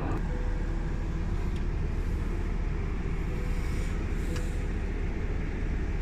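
Steady low rumble of a running road vehicle, engine and road noise, even throughout.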